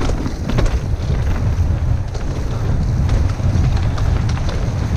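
Wind buffeting the camera's microphone as a mountain bike rides fast down a dirt trail, with tyre rumble and scattered clicks and rattles from the bike over bumps and roots.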